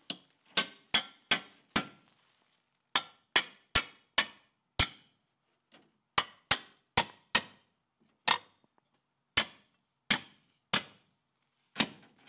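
Hammer blows tapping a steel hanger bracket into place on a wooden beam. The sharp strikes come in quick runs of four or five, then slow to single blows about a second apart in the last few seconds.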